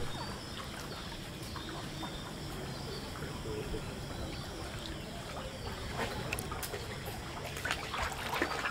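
Floodwater sloshing and trickling around a man's legs as he wades slowly through deep water, with small splashes now and then and faint bird calls behind.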